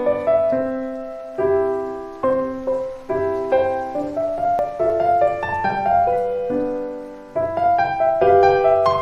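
Slow, gentle solo piano music, notes struck one after another and left to ring out.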